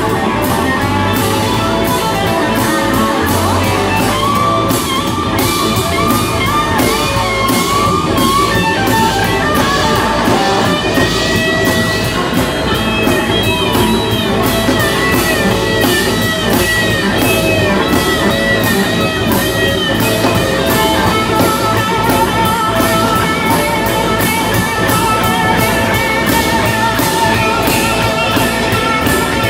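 Live rock band with a Telecaster-style electric guitar playing lead lines that bend in pitch over a steady drum-kit beat.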